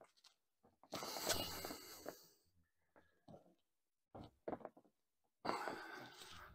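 Webbing strap of a Railblaza C-Tug boat wheel pulled hard through its buckle, in two long rasping pulls about four seconds apart, with small rustles and clicks between, as the strap is cinched tight around an inflatable boat's hull.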